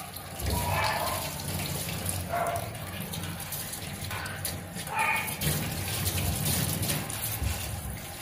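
Water running from a handheld shower hose as a small dog is washed in a stainless-steel grooming tub: a steady hiss of spray on wet fur and the tub floor.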